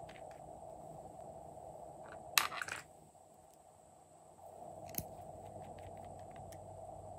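Small plastic cosmetic bottles and caps handled: a brief cluster of loud plastic clicks and knocks about two and a half seconds in, a single sharp click around five seconds, then light ticks as a cap is worked off a bottle. A steady faint hum runs underneath.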